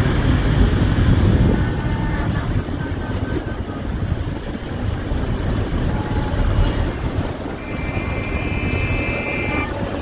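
Freight train rumbling past, loud at first and dropping away about a second and a half in, leaving a steadier, lower rumble of passing traffic. Near the end a thin high steady tone sounds for about two seconds.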